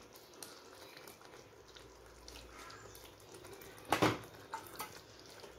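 Tamarind water poured from a steel bowl into a pan of simmering curry, a faint liquid splashing. About four seconds in comes a sharp knock, the loudest sound, followed by a couple of lighter taps.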